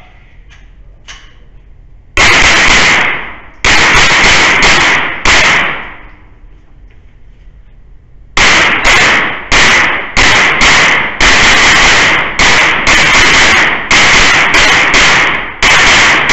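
Pistol-caliber carbine firing rapid shots, each echoing briefly: about six shots starting about two seconds in, then after a short pause a faster string of more than a dozen shots running to the end.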